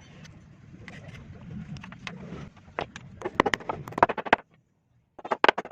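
A low steady rumble, then two bursts of rapid sharp knocks separated by a brief silence.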